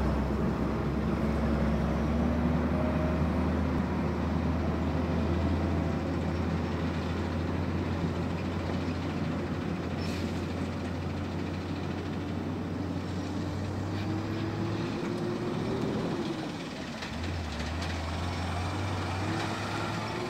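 Diesel engine of a Peterbilt 367 vacuum truck pulling away under power. Its note climbs as the truck gathers speed, drops sharply about three-quarters of the way through as it shifts gear, then climbs again, fading slowly as the truck drives off.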